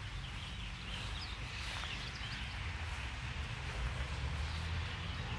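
Birds chirping now and then over a steady low rumble of wind on the microphone.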